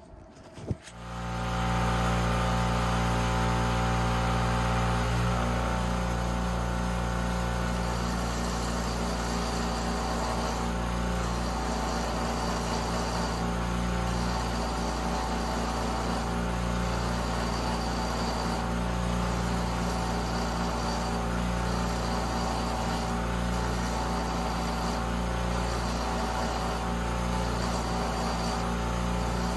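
Bench grinder running steadily with a motor hum while the steel post of a Showa 49mm fork cartridge rod is ground against the spinning wheel. The rod is turned by hand to take the rolled-over thread tip down flush with the nut.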